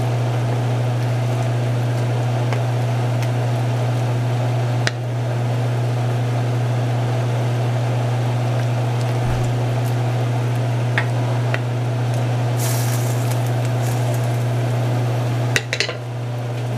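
A loud, steady low hum runs throughout. Over it come a few light knocks and a brief scrape of a wooden spoon against an enamelled cast-iron pan as soup is stirred, with the last knocks a second before the end.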